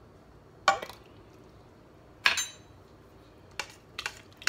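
Metal clinks against an Instant Pot's stainless steel inner pot as a can is emptied and the soup stirred: two sharp clinks about a second and a half apart, the second ringing briefly, then lighter clicks near the end.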